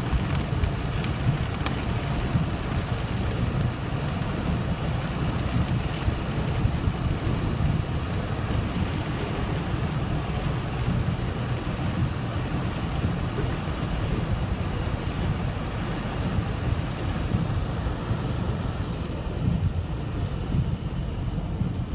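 Inside a moving car in a hailstorm: the steady low rumble of the car and its tyres on the wet, hail-strewn road, under a hiss of heavy rain on the roof and windscreen, with a couple of sharp ticks. The hiss thins out near the end.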